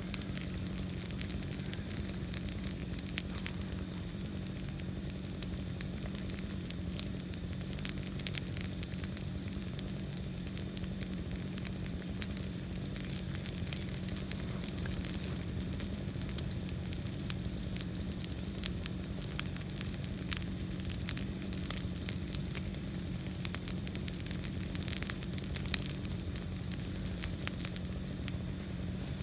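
Burn pile of green interior live oak branches burning, crackling with scattered sharp pops, a few louder ones in the second half, over a steady low hum.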